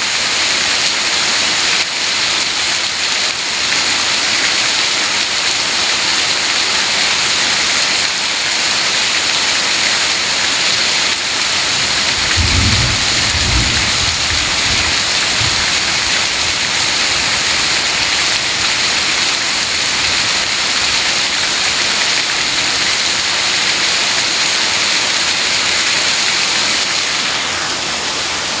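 Heavy rain pouring steadily. About halfway through, a low rumble of thunder lasts a few seconds.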